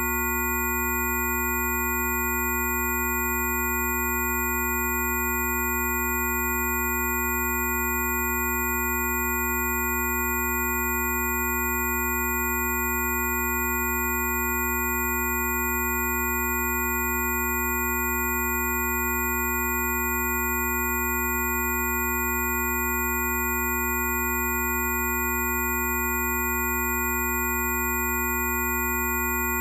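Several steady electronic tones sounding together over a low hum, held without any change in pitch or loudness.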